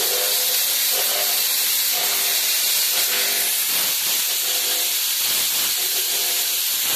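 Big Dipper 1500-watt fog machine spraying fog: a loud, steady hiss of heated fog fluid jetting from its nozzle.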